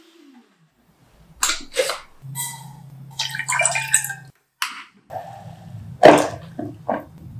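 Kitchen preparation sounds: a couple of sharp clicks, then sugar and water poured into an enamel saucepan with small clinks and rustles. Just after six seconds comes the loudest sound, a soft thud and rustle as a mound of tapioca starch is tipped into the pan.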